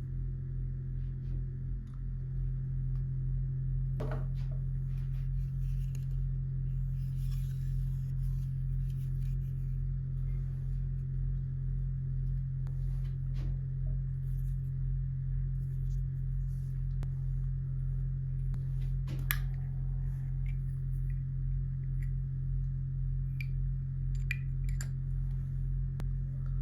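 A steady low electrical-sounding hum throughout, with a few scattered light clicks and faint rustling of small packaging being handled.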